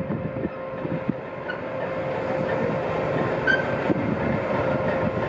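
DR class 232 'Ludmilla' diesel locomotive rolling slowly past, its V16 diesel engine running steadily with a held whine over a low rumble. A short high squeak sounds about three and a half seconds in.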